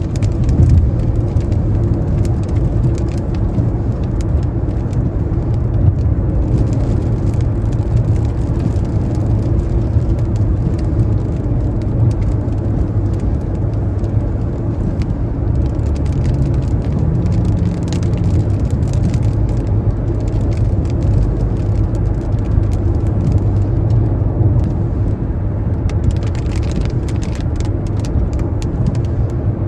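Car driving on a wet highway in the rain: a steady low rumble of tyres and road noise, with a faint higher hiss and scattered small ticks.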